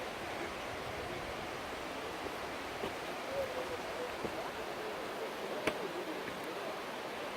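Steady rush of a mountain stream running through the gorge, with faint distant voices and one sharp click a little past halfway.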